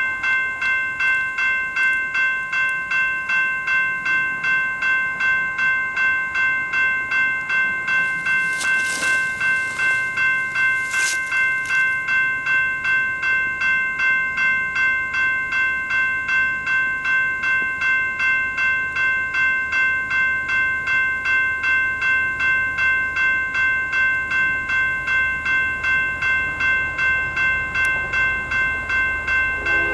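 Railroad grade crossing bell ringing in an even, fast rhythm, warning of an approaching train.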